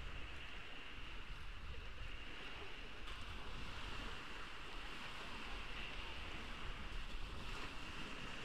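Ocean surf washing onto the beach, a steady rush of waves with a low rumble underneath and a constant high hiss.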